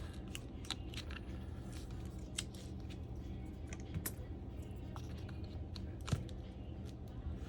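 Scattered light clicks and taps from handling the parts of an opened iPad Air while a replacement battery is fitted, over a steady low hum.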